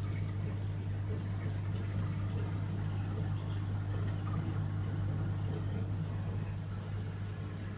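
Reef aquarium running: a steady low hum from the pumps under water trickling and bubbling.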